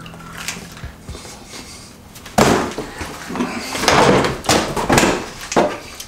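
A kitchen trash can being used: a sharp bang about two seconds in, then a burst of louder knocks and clatters between about four and five and a half seconds, like a lid banging open and shut.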